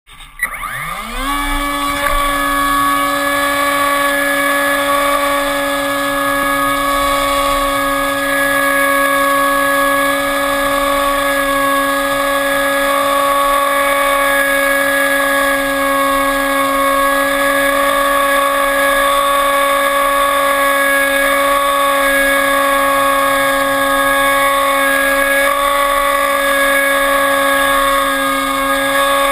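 Electric motor and propeller of an RC airplane, heard from its onboard camera: it spins up over the first second and a half, then runs at a steady, nearly constant pitch with a strong whine.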